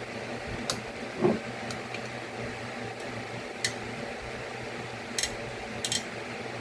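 Computer parts being handled during assembly: several sharp light clicks and one duller knock about a second in, over a steady hum.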